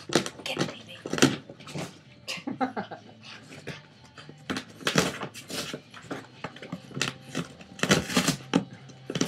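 Boston Terrier tearing into a cardboard box: irregular rips, crunches and thumps of cardboard as she bites and shakes it.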